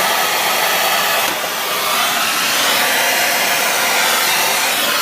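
Oxygen-acetylene torch flame burning with a steady, loud rushing hiss while heating a seized nut.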